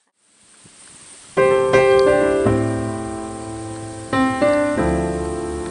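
Background piano music that comes in about a second and a half in after a near-silent gap, playing sustained chords with a new chord struck about four seconds in.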